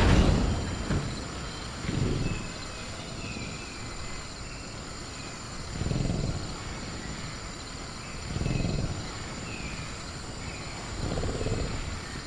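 Sound-effect velociraptor growling low four times, a few seconds apart. Behind it runs a jungle night ambience: a steady high cricket trill and faint bird chirps.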